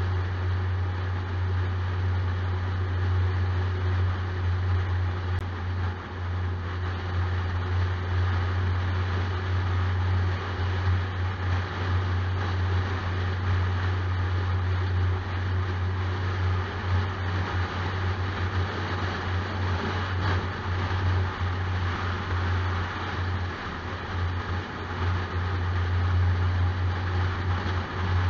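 Car driving at road speed, heard from inside: a steady low drone of engine and tyre noise on asphalt.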